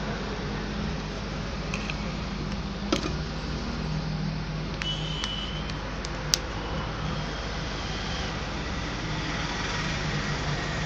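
Steady background noise with a low hum, broken by a few sharp plastic clicks about three and six seconds in as a Samsung phone's back cover is snapped into place.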